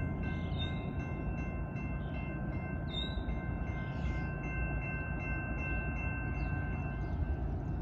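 Distant locomotive air horn, a Nathan K5LA on a GE C40-9W, sounding a long held chord as the train approaches the crossing; it stops near the end. A bird chirps a couple of times over a low rumble.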